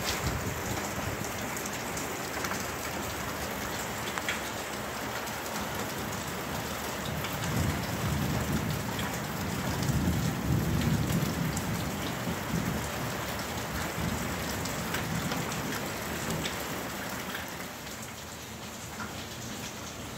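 Steady rain falling, with a low rumble of thunder that swells and fades around the middle. The rain eases slightly near the end.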